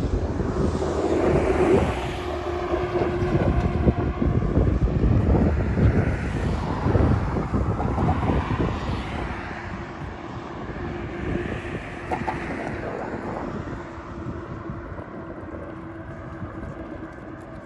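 Wind buffeting the microphone over a steady engine drone that swells and then fades after about ten seconds.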